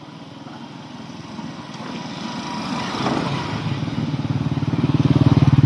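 Honda TMX Alpha 125 motorcycle's single-cylinder engine running, growing steadily louder through the second half.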